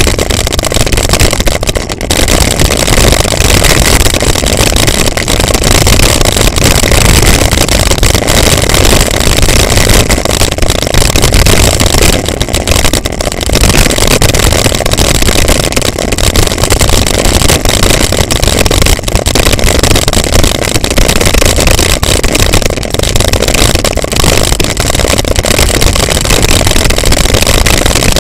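Mountain bike descending a loose gravel track at speed: a loud, continuous rumble of wind on the bike-mounted camera's microphone mixed with tyre noise and the rattle of the bike over stones.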